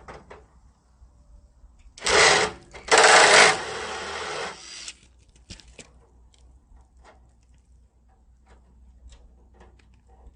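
Power tool working a rusted factory bolt on a radiator support, in two bursts: a short one about two seconds in, then a longer one of about two seconds. Light clicks and taps of metal follow.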